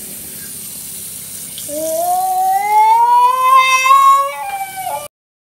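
Bathroom tap running steadily. About two seconds in, a child's voice rises over it in one long, loud, high-pitched cry that climbs steadily for about two and a half seconds, dips near the end and cuts off abruptly.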